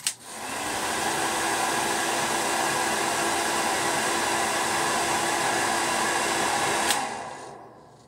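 Unix hair dryer switched on with a click and running steadily: a rush of air with a low steady hum under it. About seven seconds in it clicks off and spins down over about a second.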